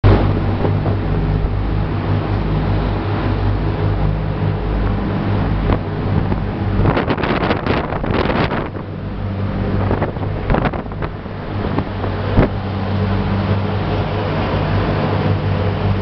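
A ship's engine drones steadily under the rush of wind on the microphone and the sea along the hull. Louder gusts of rush come about halfway through and twice more a few seconds later.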